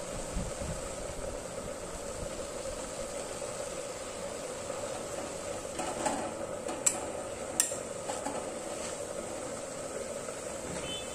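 Bottle gourd leaves cooking in a metal kadai with a steady sizzling hiss, while a steel spoon stirs them and clicks sharply against the pan a few times partway through.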